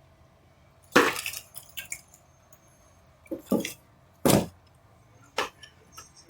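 A handful of separate sharp clinks and knocks, about six in all, spread unevenly, with the loudest a little past the middle.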